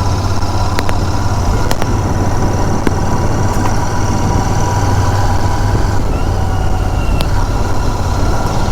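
Royal Enfield Continental GT 650's parallel-twin engine and exhaust running at a steady pitch while the motorcycle is ridden, with a few brief clicks.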